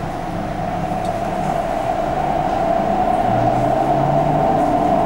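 MTR Ma On Shan Line C-Train (SP1950 electric multiple unit) running, heard from inside the car as it picks up speed after a station stop. The running noise grows steadily louder, with low tones creeping up in pitch.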